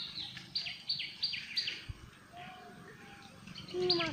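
A bird calling: a run of short, sharp notes, each sliding downward, about three a second, which pauses and starts again near the end, where a person's voice also begins.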